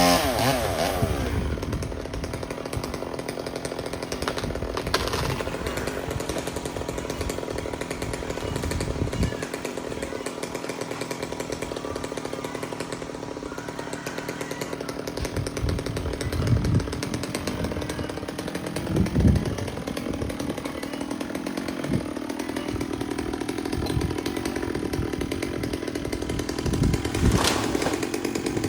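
Chainsaw running steadily at working speed, its engine note wavering and climbing toward the end, with a few brief knocks along the way.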